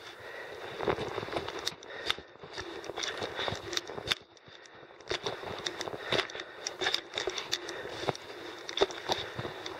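Footsteps crunching over loose, rocky ground while climbing, as an irregular run of scuffs and crunches with a short pause about four seconds in.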